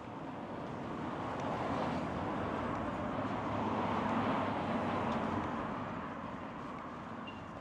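A vehicle passing by: a rush of noise that swells to its loudest about four seconds in, then fades away.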